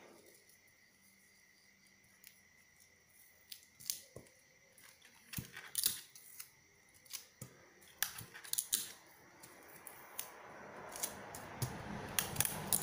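Paper pattern pieces rustling and crinkling as hands lift, fold and press them flat on a cloth-covered cutting table, with scattered sharp crackles. From about ten seconds in, this becomes a steadier rustle as a palm slides across the paper.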